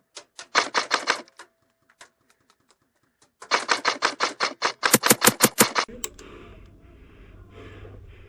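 Airsoft electric rifle, a Krytac LVOA-S, firing two rapid bursts of mechanical clicks: a short one, then a longer one of about two and a half seconds. Near the end the firing stops and heavy breathing follows.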